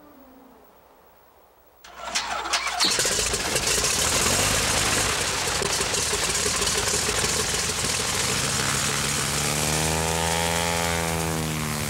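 An engine starts abruptly about two seconds in, with a few sharp clicks, then runs steadily and loudly. Near the end its pitch rises and falls back as it is revved.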